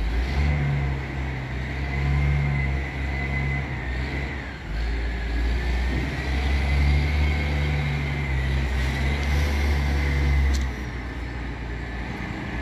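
Diesel engine of a container reach stacker running and working, its low hum dipping briefly a little under halfway and easing off near the end, with a thin wavering whine above it.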